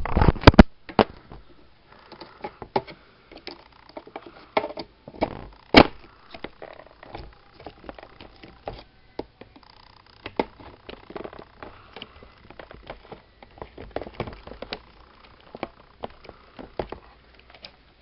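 Irregular small clicks and knocks from hands handling a RAM stick and a desktop motherboard, with the sharpest clicks about half a second in and just before six seconds.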